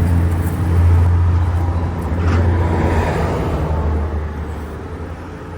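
A motor vehicle's low engine rumble, loudest about a second in and fading toward the end.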